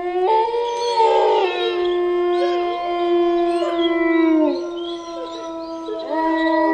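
Wolves howling in chorus: several long, overlapping howls held at different pitches. A fresh howl joins about six seconds in.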